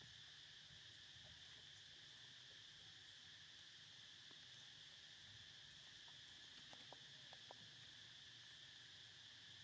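Faint, steady insect chorus, a continuous high buzz, with a few soft ticks about seven seconds in.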